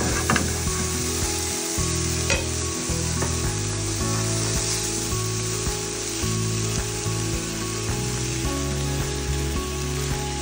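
Food sizzling in two frying pans as chopped red onion and bacon are stirred with a spatula and then tipped onto frying yabby tails, with a few spatula knocks on the pan early on. Background music with steady low notes plays underneath.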